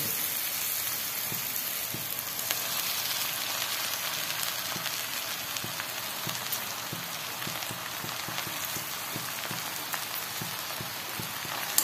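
Oil sizzling in a steel pan of fried onions, peanuts and curry leaves, with small scattered pops, as soaked poha (flattened rice) is added by hand.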